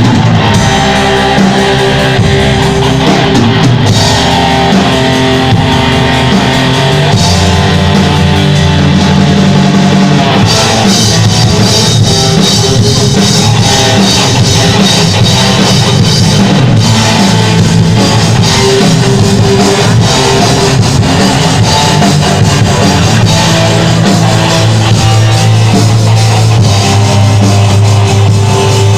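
Rock band playing live, with guitars and a drum kit, loud and continuous.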